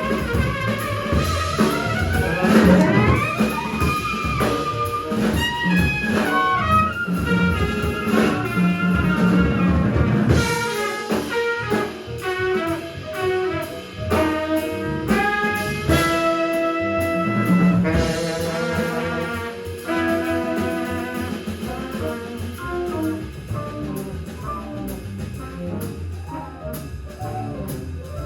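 Live jazz with trumpet and tenor saxophone playing lines over drums and accompaniment, easing off a little near the end.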